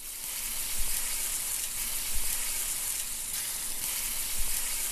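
Food sizzling on a hot griddle: a steady, dense hiss that starts abruptly, with a few soft low thumps under it.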